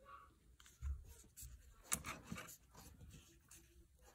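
Faint handling noise: a few light clicks and rubbing sounds as the hot-air handpiece and phone are moved about, the sharpest click about two seconds in.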